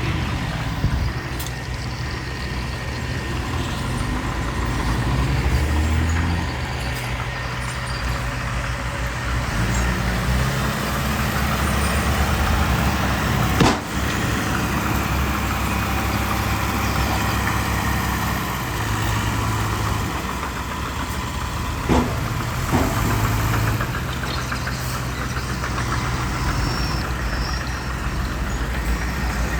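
Diesel engines of earthmoving machinery running steadily, with a few sharp knocks: one about midway and two close together about two-thirds of the way through.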